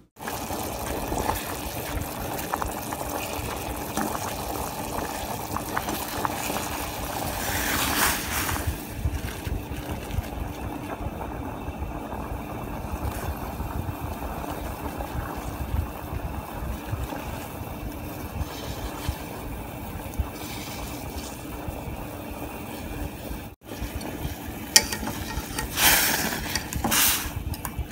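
A pot of fresh khao piak rice noodles boiling on the stove, with steady bubbling water. A few louder stirring sounds come near the end as chopsticks move the noodles.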